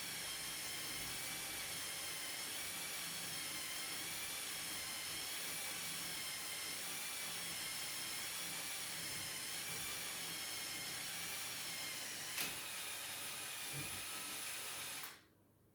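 A small electric motor running with a steady high whine that wavers slightly in pitch, with a click about twelve seconds in, then cutting off abruptly near the end.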